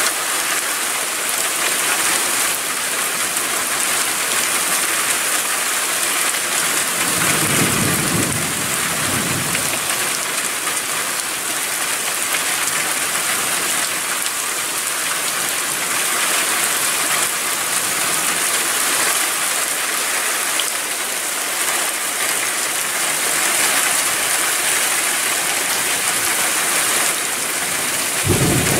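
Heavy rain falling steadily in a thunderstorm. A low rumble of thunder rolls in about a quarter of the way through, and a sudden clap of thunder comes near the end with a lightning flash.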